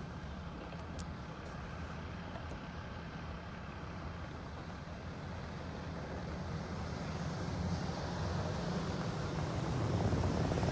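A vehicle engine's low rumble with road noise, growing louder over the last few seconds as a full-size passenger van drives up close.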